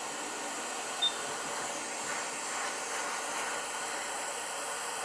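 Hot air rework station blowing a steady hiss of hot air onto a logic-board capacitor to desolder it, with a short high beep about a second in.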